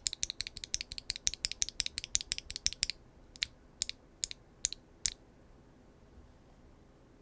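Typing test on a mechanical keyboard fitted with Keygeek B1 linear switches (nylon-fiberglass bottom housings, POM stems), in a Neo 75 with a carbon fiber plate, no foam, and GMK keycaps. It gives an extremely clacky sound. Fast keystrokes for about three seconds, then a few slower single presses that stop about five seconds in.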